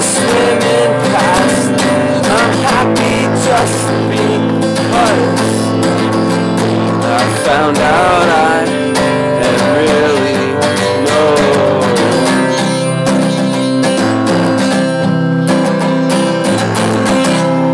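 Acoustic guitar strummed steadily, with a man's voice singing over it. The singing stops about halfway through and the guitar carries on alone.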